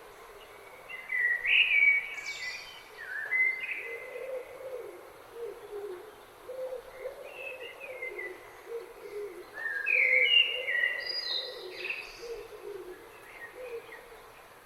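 Birds singing: two bursts of loud song phrases made of short stepped notes, about a second in and again around ten seconds in, with lower warbling calls running between and under them.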